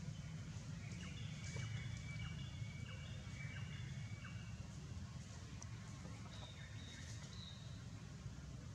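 Outdoor ambience: a steady low rumble with faint high bird chirps, clustered in the first half and again about seven seconds in, and a few light ticks and rustles.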